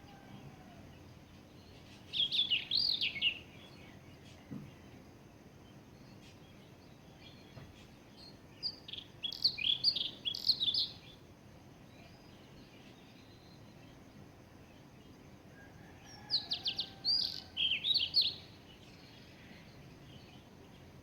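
An Indian chat singing: three separate phrases of quick, high, warbled notes, about two seconds in, around nine seconds in and again past the halfway point, with quiet pauses between them over faint background noise.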